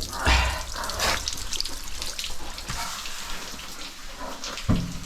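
Cave stream water running and splashing, with irregular knocks and scuffs over it.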